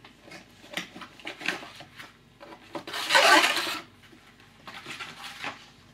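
Cardboard packaging being handled: scattered light knocks and rustles, with a louder scraping rustle about three seconds in as the inner cardboard tray is pulled out of the box.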